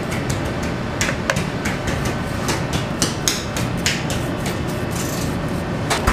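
A pastry brush dabbing and knocking against glazed bread loaves on a perforated metal tray, making irregular light taps and clicks over a steady kitchen hum, with a sharper click near the end.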